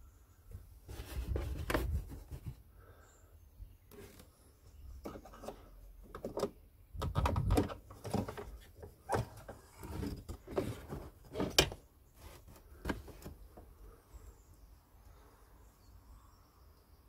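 Plastic bulb holder of a Peugeot 307 rear light unit being unclipped by its two tabs and pulled out: a run of sharp plastic clicks, knocks and rattles, in bunches.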